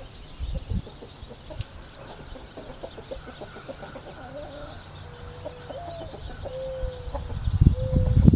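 Chickens clucking in short held calls, with a fast high bird trill, over a faint low hum. About seven and a half seconds in, a loud, uneven low rumble starts as the tractor's 18 hp twin-cylinder engine is cranked. The owner puts its failure to turn over fully down to a bad starter.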